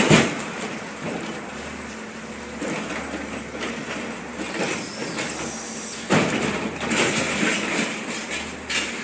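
Recycling garbage truck at work: its engine and machinery run with clattering and knocking, and a loud bang comes right at the start and another about six seconds in.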